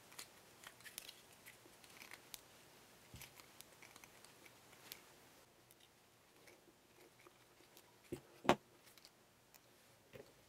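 Small Phillips screws being driven by hand with a screwdriver into a quadcopter frame: faint, scattered little clicks and scrapes of the screwdriver and screws. One sharper knock comes near the end.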